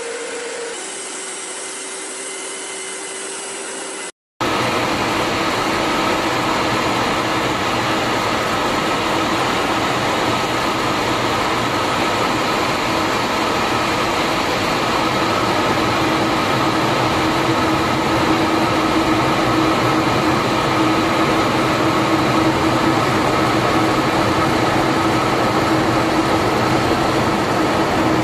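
Steady jet engine and airflow drone inside a MiG-31 interceptor's cockpit, with a steady hum running through it. It cuts out briefly about four seconds in and comes back louder.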